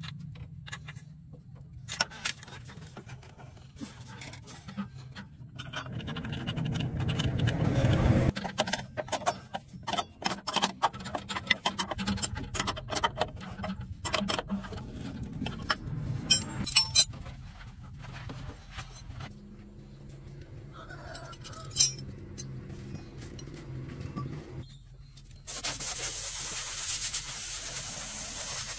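Spanners and metal parts clicking, clinking and scraping against a truck's shock absorber mounts and bolts, in many sharp, irregular clicks with a louder stretch of rubbing. Near the end a steady hiss starts suddenly.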